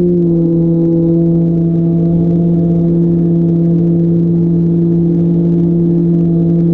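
RC plane's motor and propeller running at steady cruise power, a loud, even drone that dips slightly in pitch just after the start and then holds.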